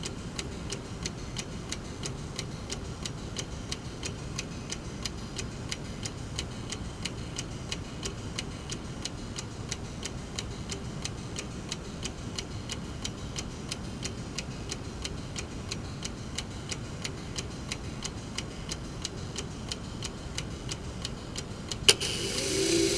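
Brass mechanical clock movement ticking rapidly and evenly. Near the end comes a sharp click and a rising whir as the striking train is released, just before the chime.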